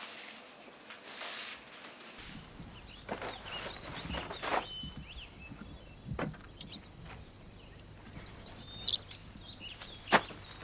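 Small birds chirping, with a quick run of chirps shortly before the end, over a faint steady hum. A few sharp knocks come in among the chirps, the loudest about ten seconds in.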